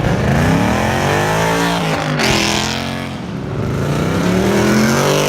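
Car engine accelerating hard, its pitch climbing, dropping briefly at a gear change about two seconds in, then climbing again.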